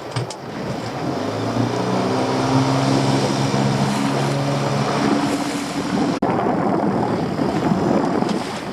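Small boat's outboard motor running at a steady pitch under wind and water noise. The motor comes in about a second in and cuts off abruptly about six seconds in, leaving wind and water.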